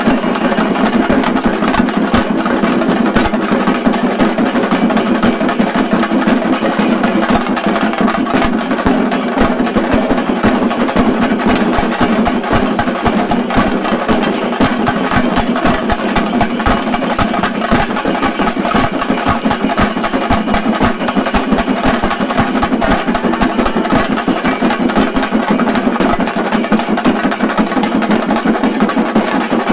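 Chenda drums of a Kerala shinkari melam troupe played loud and fast, a dense unbroken roll of stick strokes.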